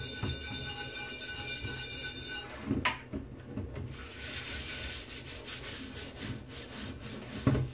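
Cast iron pan being scrubbed with a stainless steel brush in a stainless-steel sink, continuous rasping strokes that work off old seasoning loosened by a lye bath. Two clunks of the pan or brush against the sink, one about three seconds in and a louder one near the end.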